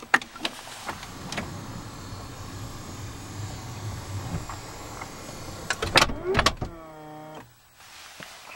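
Power sliding side door of a Dodge Grand Caravan closing by its motor: a click, then a steady low motor hum for about five seconds. It ends in a loud clunk as the door latches, followed by a short whine.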